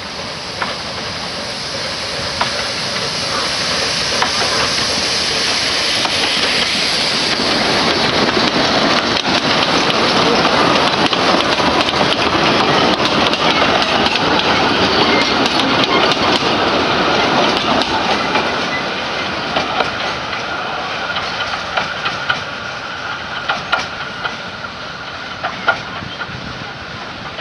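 Narrow-gauge steam locomotive U45.903 passing close by, growing louder to a peak about halfway through. Then its open passenger coaches roll past, the wheels clicking over the rail joints as the train moves away and fades.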